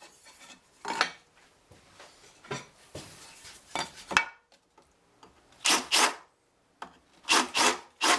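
Hand deburring: short scraping strokes of a file or similar hand tool taking burrs off freshly drilled holes, mostly in quick pairs with pauses between.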